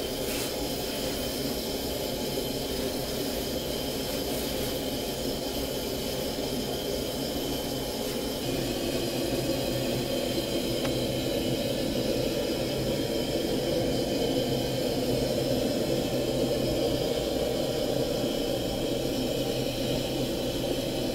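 Steady roar of a stove burner firing under a wide wok of water, growing somewhat louder about eight seconds in.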